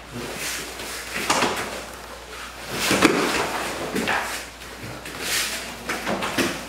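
Karate gi fabric swishing and rustling, with scuffs and thumps of feet and bodies as two people grapple in a clinch; the loudest thump comes about three seconds in.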